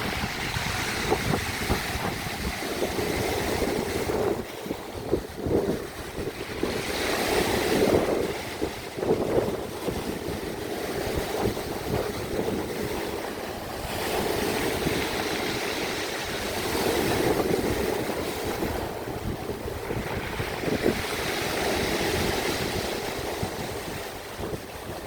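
Sea waves washing in and drawing back, swelling and fading in slow surges every few seconds.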